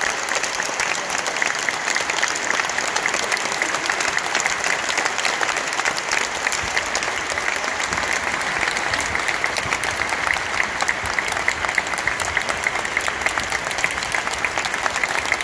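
Audience applauding: dense, steady clapping from a full concert hall.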